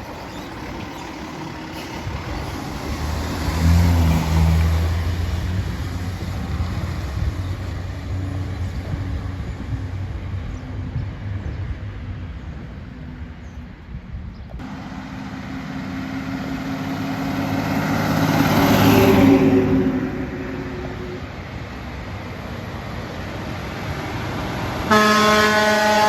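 Heavy trucks driving past, each engine growing louder and then fading as it goes by. About a second before the end, a loud, steady horn blast begins.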